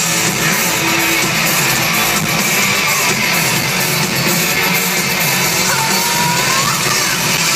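Rock band playing live through a large open-air festival sound system, heard from the crowd, with guitars prominent in a loud, dense mix.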